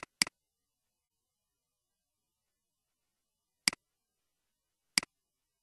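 Computer mouse button clicking: a quick double-click, then two single clicks about a second and a half apart.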